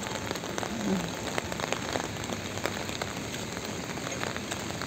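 Steady rain falling on the pavement and street, a dense patter of individual drops ticking.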